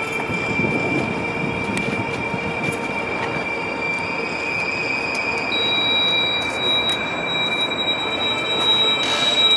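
Subway train running, heard from inside the car: a steady noise of wheels on rails with sustained high-pitched wheel squeal. A second, higher squeal tone joins about halfway through.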